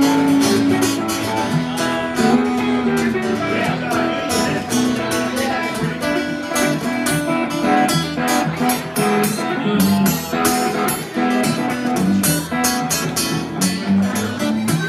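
Two acoustic guitars playing a blues tune together: a strummed rhythm with picked single-note lines over it, with no singing.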